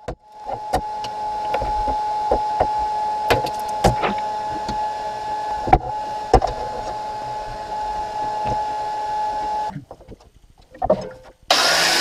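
A steady high hum with scattered clicks and knocks from a flat steel bar being handled and clamped in a bench vise. The hum cuts off suddenly near the end, and an angle grinder starts up loudly in the last half second.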